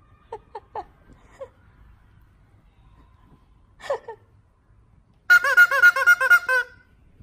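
Rubber chicken squeak toy squeezed, giving a few faint single squeaks and then a loud quick run of about eight short squeaks near the end.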